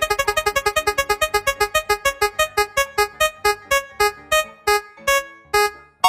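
Spinning prize-wheel sound effect: a rapid run of short electronic piano-like notes, about eight a second at first, that slows steadily as the wheel decelerates, the notes spacing out until the last one shortly before the end as the wheel comes to rest.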